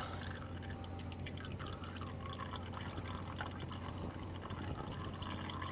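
Engine oil dripping and trickling from a loosened oil filter into a drain pan, in many small irregular drips.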